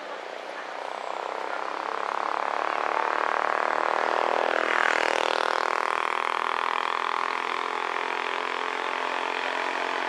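A motor vehicle's engine approaches and passes close by, its pitch sweeping down as it goes past about five seconds in. It then runs on steadily and cuts off suddenly at the end.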